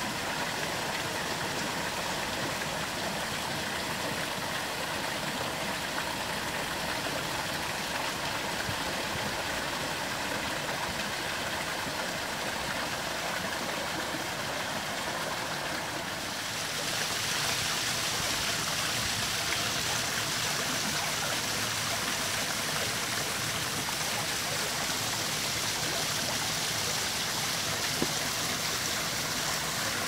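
Small garden waterfall splashing steadily into a pond. About halfway through it gives way to a second, two-tier cascade that is a little louder and hissier.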